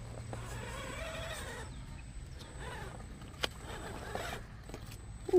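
RC rock crawler's drivetrain whining in short spurts as it crawls over boulders, with a sharp click a little past halfway and a brief louder sound with a falling pitch at the very end.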